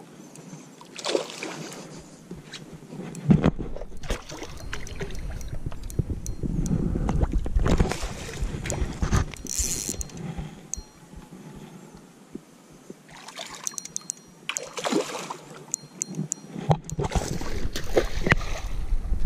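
A hooked fish splashing at the surface close to a skiff near the end, after a run of knocks and clatter from rod and gear being handled on the boat.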